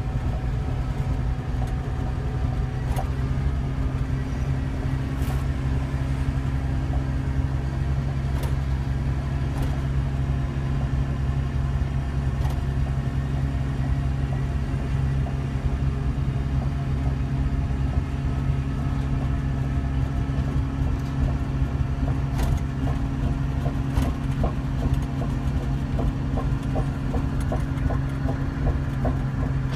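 CAT D6N crawler dozer's diesel engine running steadily, heard from inside the cab. Scattered sharp clicks sound over it, with a run of quick ticks near the end.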